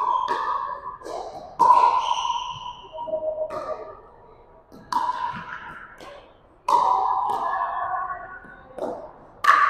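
Pickleball paddles striking the plastic ball in rallies: a series of sharp pops, about six at intervals of a second and a half to two seconds, each ringing on in the gymnasium's echo.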